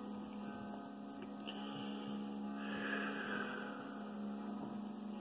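A steady low electrical hum, with a soft airy hiss rising for about a second near the middle.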